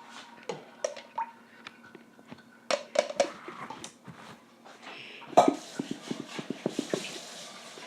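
Clattering and knocking of bowls, containers and utensils being handled on a table, with a quick run of light clicks about five and a half seconds in.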